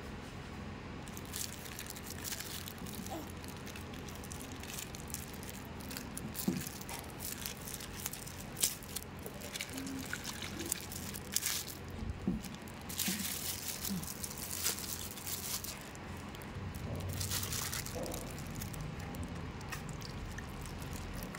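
Hands handling food in a ceramic bowl: scattered light clicks and rustles as vegetable toppings are pressed onto rice noodles, over a steady low hum. Near the end a plastic bag rustles as yellow soup is poured from it over the noodles.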